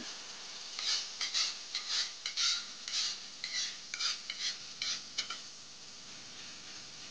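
A spatula scraping and stirring in a frying pan, about a dozen quick strokes in a row over a faint steady hiss. The stirring is of a ground shallot, garlic and chilli paste being sautéed in oil until fragrant.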